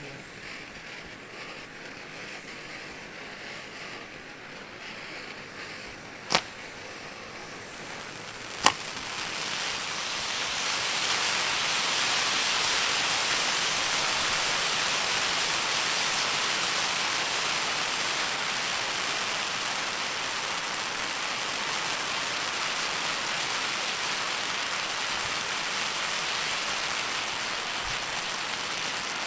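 Spinning fountain firework burning with a steady hiss of spraying sparks. Two sharp pops come about six and eight and a half seconds in, after which the hiss grows much louder and stays strong.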